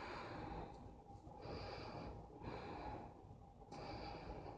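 A woman breathing slowly and deeply, with three or four audible breaths in and out, each about a second long, and short pauses between them.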